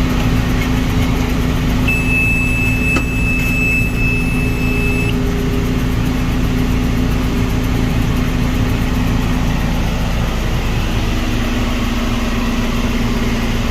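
John Deere 6320 tractor's diesel engine running steadily while pulling a New Holland 644 round baler through hay. About two seconds in, a steady high electronic beep sounds for about three seconds.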